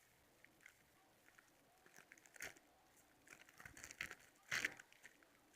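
Near silence with a few faint, short handling rustles and soft taps, the loudest about four and a half seconds in.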